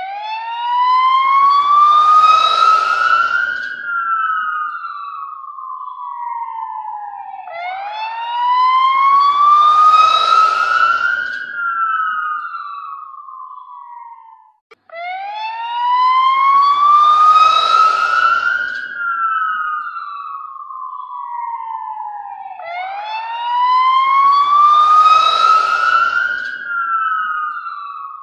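Ambulance siren wailing: a slow tone that rises over about four seconds and falls back, repeating about four times.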